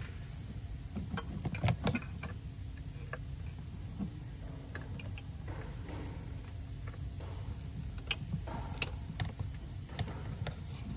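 Scattered sharp clicks and knocks of hard plastic parts being handled as a new brake servo pressure sensor is worked into place behind the brake fluid reservoir. The loudest come about eight and nine seconds in, over a steady low rumble.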